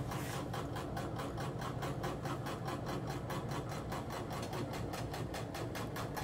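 A magnetically coupled Z drive and alternator rig spinning, giving a steady mechanical whir with a fast, even pulsing beat as it is being pulled back out of the drive plates' field.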